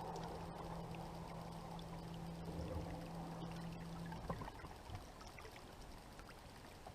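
Water rushing and splashing steadily, slowly fading, with a low steady hum underneath that cuts off about four seconds in.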